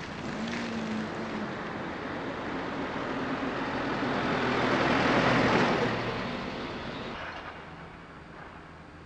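Road vehicles driving past close by: a car first, then a small flatbed truck whose engine and tyre noise swells to a peak about five seconds in and fades away.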